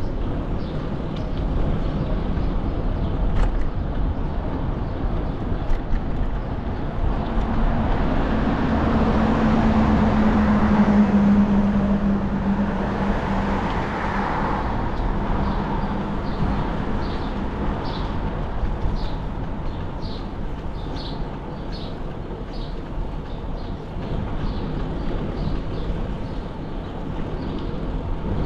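Steady wind and road noise from a bicycle ride. A motor vehicle passes from about eight seconds in: its hum builds, peaks and fades away over several seconds. In the second half there are light regular ticks, about two a second.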